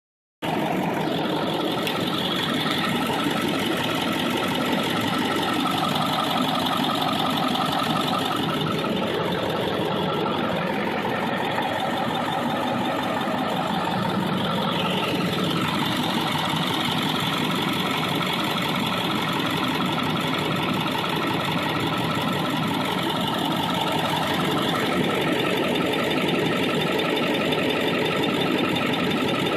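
Ford 7.3 L Powerstroke V8 turbodiesel idling steadily, with a faint intermittent knock that the owner hopes is an injector and not the engine itself. It starts abruptly about half a second in.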